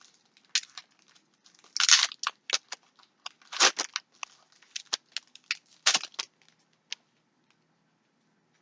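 A foil booster pack wrapper crinkling and tearing in irregular handfuls, loudest about two, four and six seconds in, then stopping about seven seconds in.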